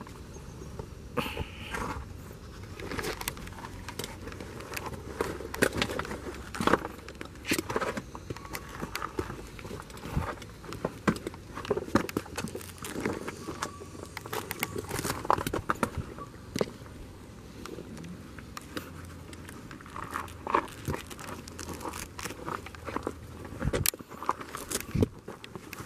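Irregular footsteps scuffing and crunching on rock and loose gravel as someone climbs down a rocky path, with sharp clicks throughout.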